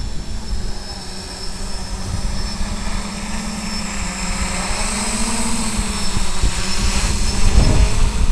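Electric motors and propellers of a small multirotor drone humming in flight, with a low wind rumble. The pitch rises slightly about five seconds in, and the sound grows louder near the end as the motors draw more current.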